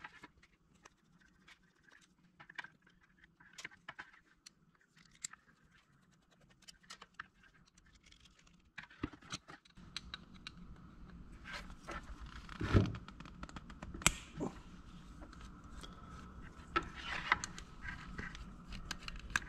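Light metal clicks and scrapes of a screwdriver working the float bowl screws of a small two-stroke dirt-bike carburetor, along with the carburetor being handled. There are a few louder knocks in the second half.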